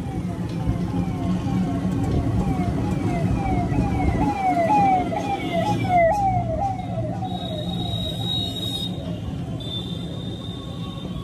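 Electronic siren sounding in quick falling chirps, about two and a half a second, growing louder to a peak around five or six seconds in and then fading away, over the steady road rumble of the moving rickshaw. A thin steady high whine comes in after the siren fades.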